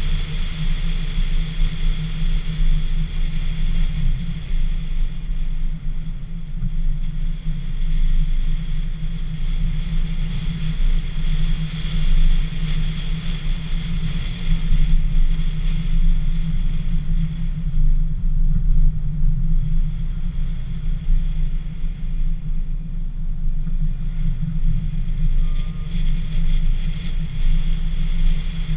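Low, steady rumble of wind buffeting a GoPro mounted on the outside of a moving Dacia Sandero, with the car's road and engine noise underneath. A faint steady high whine runs along with it.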